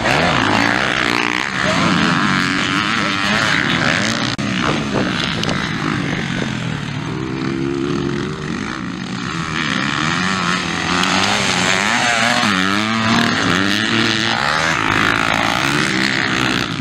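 Motocross bikes' engines revving hard, the pitch climbing and dropping again and again with the throttle, more than one bike heard at once.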